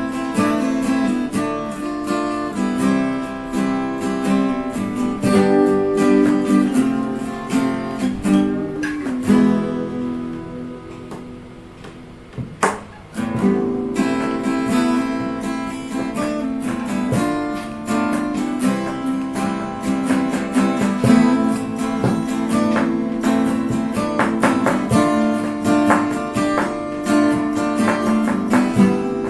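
Strummed acoustic guitar music. About ten seconds in it fades down, then comes back in a few seconds later after a single sharp click.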